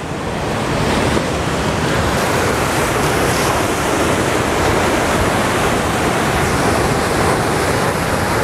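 Ocean surf breaking on the rocks, a steady, loud wash of wave noise, with wind buffeting the microphone.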